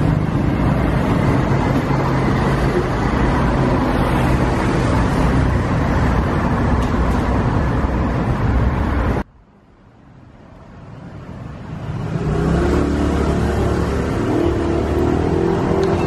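Steady street traffic noise with a low engine hum from motor vehicles. About nine seconds in it cuts off abruptly, then fades back in over a few seconds.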